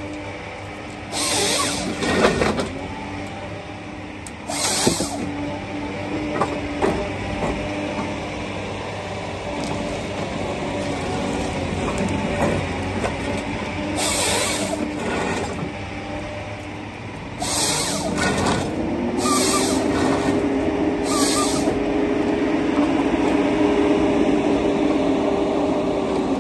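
John Deere 953MH tracked harvester working with its Waratah 622B processing head: the diesel engine and hydraulics run steadily, with several short sharp bursts of noise as the head feeds and cuts the stem. About 19 seconds in the machine steps up to a louder, steady higher pitch that holds to the end.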